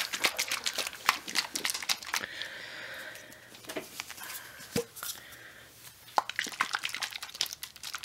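Close handling of a plastic baby bottle and fabric: a quick run of clicks and crinkly rustling, easing off in the middle with a single sharp click, then another cluster of clicks near the end.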